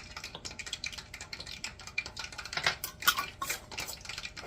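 A utensil clinking and scraping against a mixing bowl in quick, irregular strokes, louder for a second or so past the middle.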